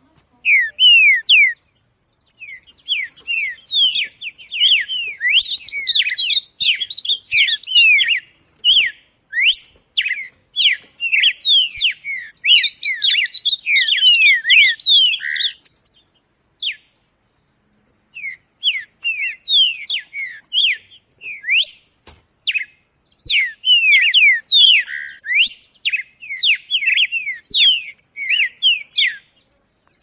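Songbird singing a fast, chattering song of short high notes, many falling in pitch, that breaks off for about two seconds a little past the middle and then resumes.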